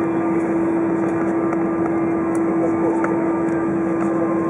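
Steady cabin noise of an Airbus A320 taxiing after landing, heard from inside the cabin: an even rumble with one strong steady tone from the aircraft at taxi power.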